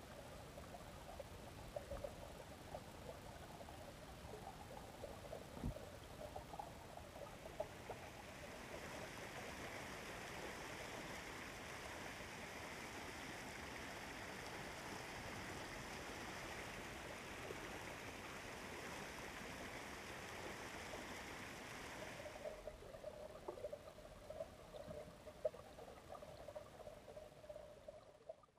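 Faint trickling, bubbling water, with a steadier rush of flowing water through the middle stretch, fading out at the end.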